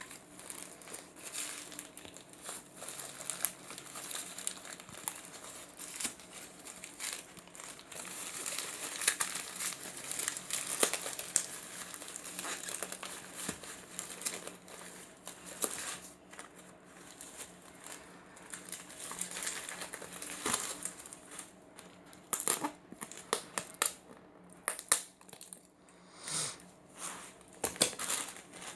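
Packaging being handled and unwrapped: continuous crinkling and rustling with many small sharp clicks, thinning out to scattered clicks and handling noises near the end.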